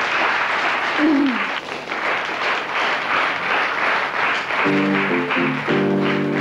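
Studio audience applauding steadily. Near the end, music comes in with a few held chords over the clapping.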